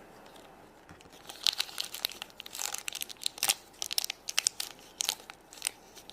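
Plastic toy wrapper being crinkled and unwrapped by hand, in irregular sharp crackles that start about a second in.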